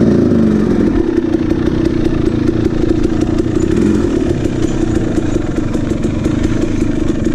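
KTM 300 XC two-stroke dirt bike engine running at low, steady revs as the bike rolls down a steep, rocky singletrack.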